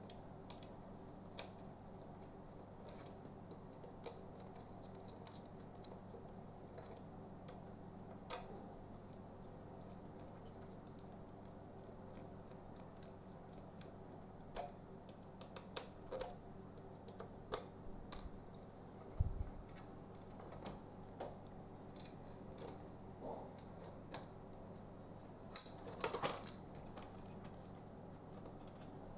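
Irregular small clicks and taps of laptop parts and a screwdriver being handled while an opened Toshiba Satellite C640 is put back together after its processor swap, with a short clatter near the end.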